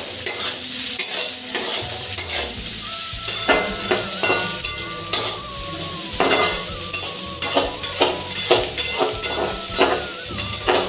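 Sliced onions and chillies sizzling in hot oil in a metal kadhai, with a steel ladle scraping and knocking against the pan in quick, irregular strokes as they are stirred.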